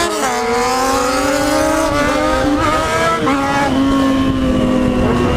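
Yamaha XJ6's inline-four motorcycle engine pulling at road speed with a loud exhaust: the engine note drops at the very start, then climbs slowly, with brief dips about two and three seconds in, over steady wind rush.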